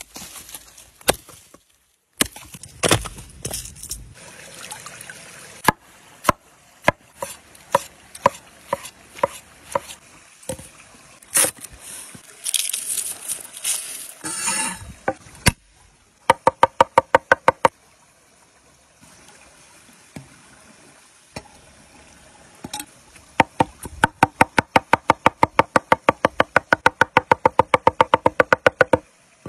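Hatchet splitting wood with sharp separate knocks, then the rustle of garlic cloves being peeled, then a cleaver chopping rapidly on a wooden cutting board, about seven strikes a second, in two runs. A stream runs faintly behind.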